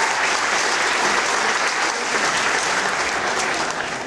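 A theatre audience applauding steadily, a welcome for a performer coming on stage.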